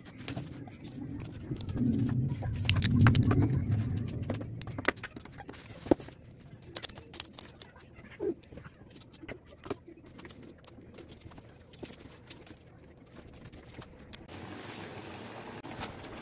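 Leafy vegetables being picked over and dropped into a plastic basin: scattered small clicks and snaps. A low rumble swells and fades in the first few seconds. A steady hiss sets in near the end.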